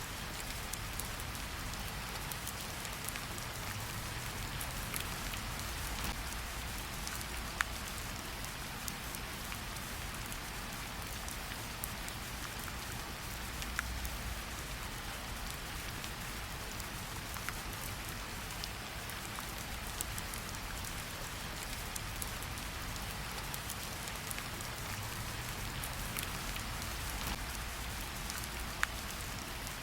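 Steady rain falling outside, an even hiss with scattered sharper drop ticks, the loudest near 8 s, 14 s and near the end.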